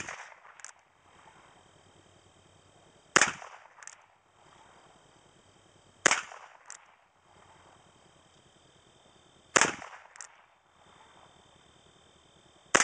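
Ruger Single Six single-action .22 revolver firing slow, aimed shots, one sharp crack about every three seconds. A fainter sharp tick follows each shot about half a second later.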